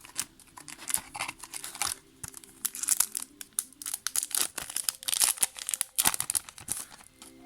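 Foil wrapper of a Yu-Gi-Oh booster pack being torn open and crumpled by hand: a run of irregular, crisp crinkles and crackles.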